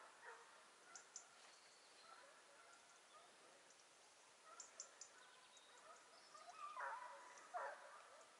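Hare-trailing scent hounds baying faintly in the distance, in scattered calls with a louder pair near the end, the sign that the pack is on the hare's trail.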